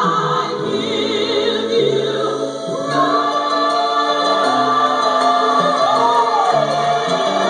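Recorded gospel song: a choir and solo voice singing held notes over keyboard and bass.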